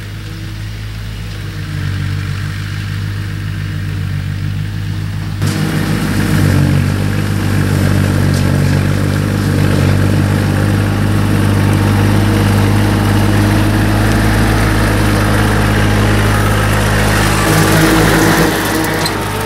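Bobcat CT230 compact tractor's diesel engine running steadily under load while its PTO-driven 60-inch King Kutter rotary mower cuts tall grass. It grows louder as the tractor approaches and passes close by, with a sudden jump in loudness about five seconds in.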